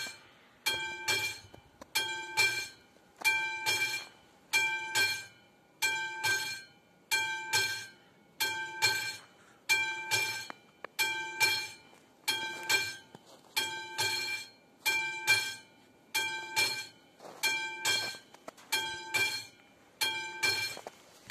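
Classic electromechanical level-crossing bell of an AŽD 71 crossing signal ringing in a steady, even stroke, about three strikes every two seconds, each one ringing out briefly. It is warning that a train is approaching.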